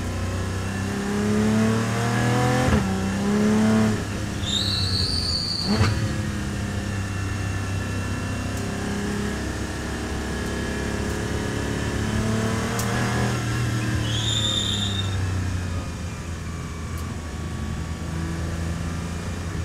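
Porsche 718 Cayman GT4's 4.0-litre flat-six, heard from inside the cabin, revving up and down in second gear under throttle through corners. Tyres squeal twice, briefly, about four and a half seconds in and again near fourteen seconds.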